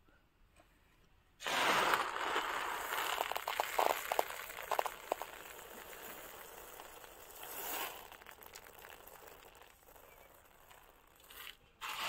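Dry black peppercorns rustling and rattling as a hand scoops and stirs through them in a plastic tray. It starts suddenly about a second and a half in with a flurry of small clicks, then fades, with another burst near the end.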